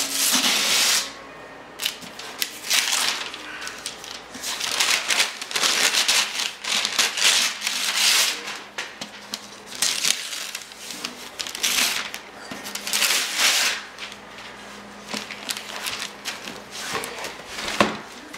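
Gift wrapping paper being torn by hand off a cardboard box, in a series of irregular rips and crinkles with short pauses between them.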